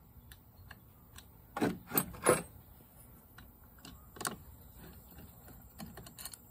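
Metal clicks and clinks of a Torx driver working T27 screws out of a chainsaw's ignition module: three louder clinks close together about a second and a half in, another near the middle, and a few light ticks near the end.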